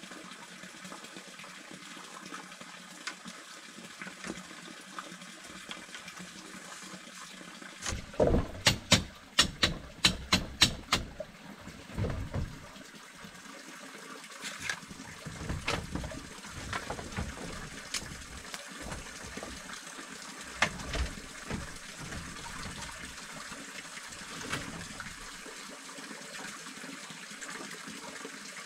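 Steady running water, with a quick run of about nine sharp knocks, about three a second, roughly a third of the way in. Scattered softer knocks follow.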